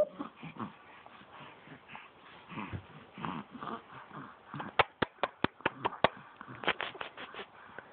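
A quick run of sharp clicks or taps, about eight in just over a second, then a few more near the end, over faint soft rustling sounds.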